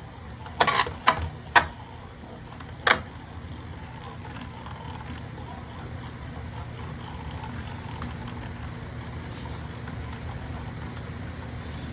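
A Flame Pandora Beyblade Burst top spinning in a plastic Beyblade stadium on its Core Plus driver: a few sharp clacks in the first three seconds as it knocks against the stadium, then a steady whir of the spinning top that grows slightly louder.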